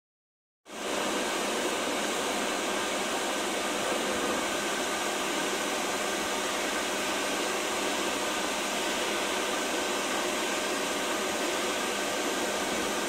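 An old hairdryer, taped to a copper pipe as the blower of a coal forge, blowing air into the fire with a steady rushing hiss. It cuts in abruptly just under a second in.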